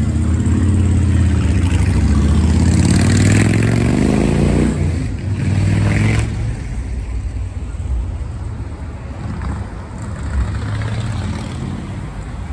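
A motor vehicle with a deep engine drone passes close by. It is loudest for the first five or six seconds, with the sound sweeping as it goes past, and then eases to a lower rumble.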